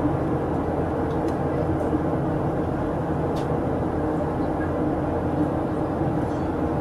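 Steady cabin drone of a Boeing 737-800 in flight, its CFM56 jet engines and the airflow over the fuselage heard from a window seat inside the cabin, with a faint hum of a few low tones.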